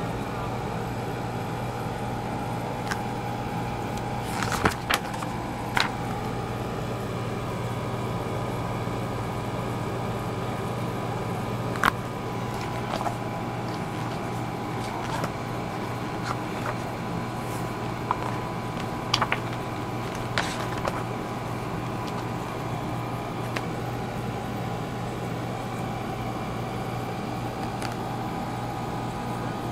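A steady background hum runs throughout. Over it come a few scattered clicks and rustles from a glossy yearbook being handled and its pages moved, the sharpest clusters about five seconds in, at twelve seconds, and around nineteen to twenty seconds.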